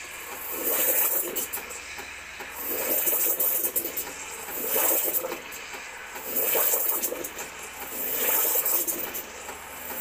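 Krups espresso machine's steam jet hissing into milk in a glass carafe as it froths it, swelling and fading about every two seconds.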